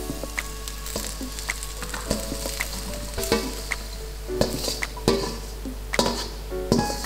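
Hot stir-fried vegetables sizzling in a stainless-steel mixing bowl, while a steel ladle scrapes and knocks against the bowl about every half second as they are scooped out.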